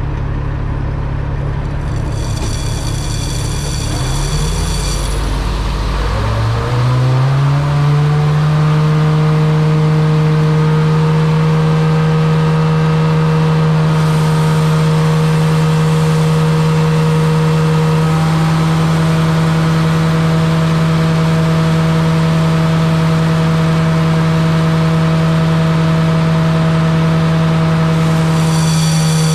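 Grain vacuum starting up: a low engine rumble, then the vacuum's fan spools up between about four and eight seconds in, its pitch rising, and settles into a loud, steady hum and whine at working speed.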